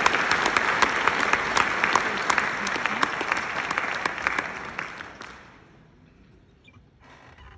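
Audience applauding, a dense patter of many hands clapping that fades away about five seconds in, leaving the hall quiet.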